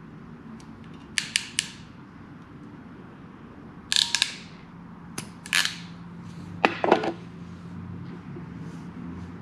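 Hand crimping pliers clicking and snapping as their stripping jaws bite into and pull back the insulation of a spark plug wire: three quick clicks about a second in, then more clicks and snaps over the following few seconds.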